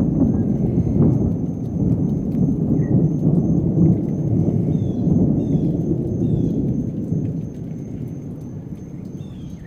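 Rolling thunder: a long, low rumble that dies away over the last few seconds.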